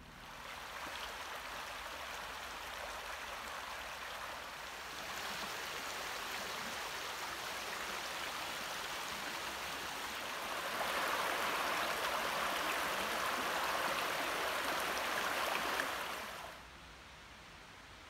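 A shallow woodland river, the Muff River, rushing over stones and small rapids in a steady watery hiss. It grows louder in two steps, about five and ten seconds in, then cuts off sharply shortly before the end.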